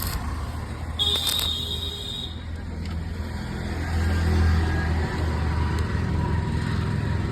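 Hero HF Deluxe's small single-cylinder four-stroke engine idling through a fitted RX100-style aftermarket silencer, swelling louder briefly about four seconds in. A few sharp crackles and a short high whine sound within the first couple of seconds.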